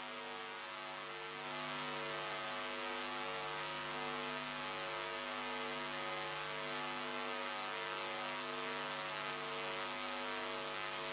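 Steady electrical hum and buzz with no voice or crowd: the audio feed has dropped out, leaving only the line's hum.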